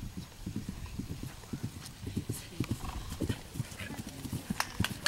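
Horse cantering on grass: a steady run of dull hoofbeats, several a second, as it passes close by.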